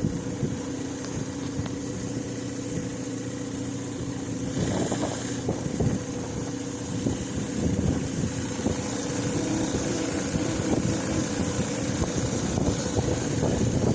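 A fishing boat's motor running steadily while under way, with wind buffeting the microphone.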